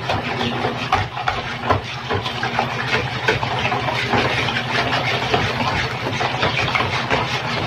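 Wire whisk beating a runny egg-and-sugar batter in a plastic bowl, quick repeated strokes breaking up lumps of margarine. A steady low machine hum runs underneath.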